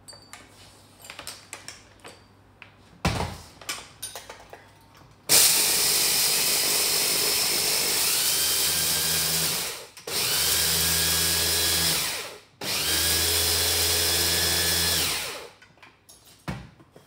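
Small electric food processor grinding corn flakes to a fine powder. The motor runs in three bursts of a few seconds each, with short pauses between them, after a few knocks of handling.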